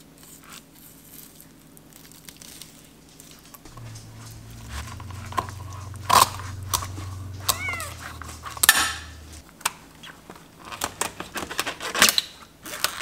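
A kitten meows once, a short call that rises and falls, about halfway through. Around it come sharp clicks and scrapes of a filleting knife on a plastic cutting board as a fish is cut up.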